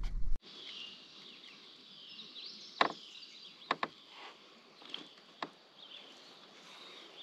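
Birds chirping in the background over a steady outdoor hiss, with several sharp clicks and knocks from handling while a hook is worked out of a small sunfish, the loudest about three seconds in.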